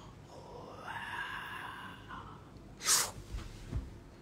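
A man's breathy, whispered vocal sound, then a loud, sharp burst of breath, like a hiss or gasp, about three seconds in, followed by two low thumps.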